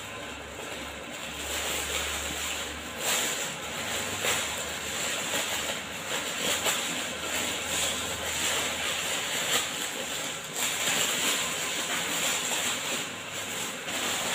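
Clear plastic packaging crinkling and rustling in irregular surges as hands work a folded hoodie out of its bag.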